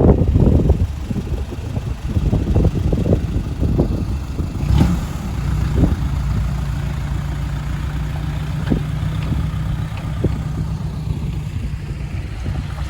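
Truck's diesel engine running at low speed, settling into a steady low drone from about halfway, with wind buffeting the microphone at the start and a single knock just before the middle.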